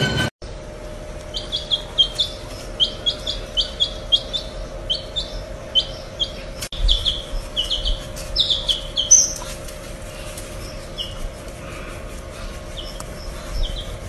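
Baby chick peeping: a quick run of short, high peeps, each dropping slightly in pitch, thinning out to a few scattered peeps after about nine seconds.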